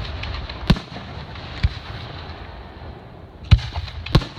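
Aerial firework shells bursting: sharp bangs about 0.7 and 1.6 seconds in, then the two loudest about three and a half and four seconds in, with lighter crackles between, over a steady low rumble.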